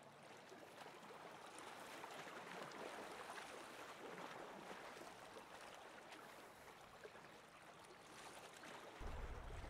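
Faint, even wash of lake water lapping at a rocky shore, swelling a little in the middle and easing off.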